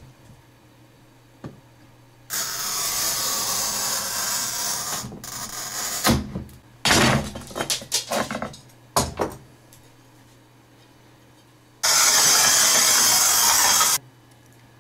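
Manual tile cutter's scoring wheel drawn along a large-format glazed tile: two steady scratching passes of about two to three seconds each, both starting and stopping abruptly, with irregular clunks and knocks in between.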